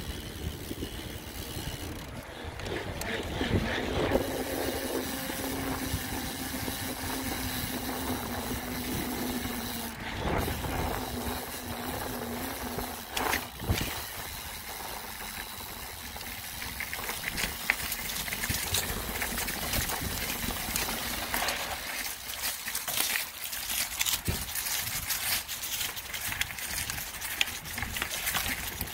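Mountain bike being ridden, heard from a phone mounted on the bike: a constant wash of wind and tyre noise with frequent knocks and rattles from bumps. A steady low hum runs for several seconds in the first half.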